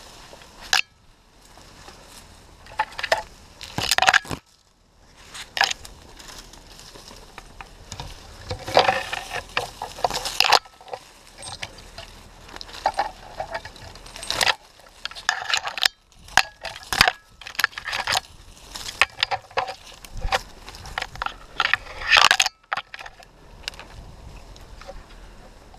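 Dry oak leaves and twigs crackling and scraping close against a helmet-mounted camera as a climber moves through the tree's crown, in irregular clusters of crunches and rustles.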